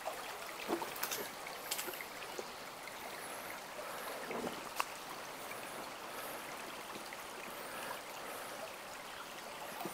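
Small rocky brook trickling and gurgling steadily over stones, with a few faint sharp clicks.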